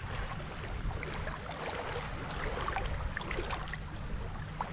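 Shallow water lapping, with small splashes as a bream is let go back into it, over a steady low rumble.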